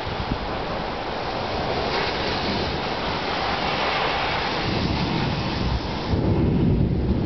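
Strong thunderstorm: a steady rushing hiss of heavy rain and wind. About six seconds in the hiss fades and a louder low rumble takes over.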